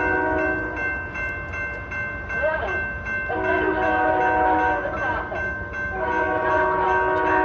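SEPTA Silverliner V commuter train sounding its multi-note air horn for a grade crossing, loud. A blast cuts off about a second in, a second long blast sounds from about three to six seconds, and another starts right after it.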